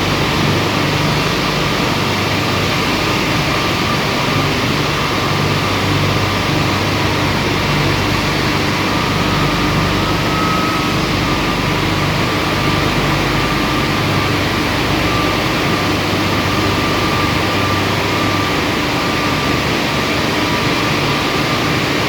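Marble sandblasting machine running: a steady, loud hiss of the blast with a low machine hum underneath and no break.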